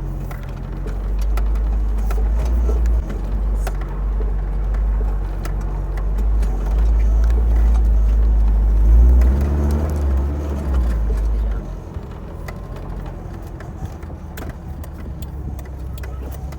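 Toyota 4Runner engine pulling hard up a steep grade in four-wheel drive, with locked front hubs. It is a heavy low drone that changes pitch about 3 s in and again around 9–11 s, then eases off near 12 s, with light knocks and rattles throughout.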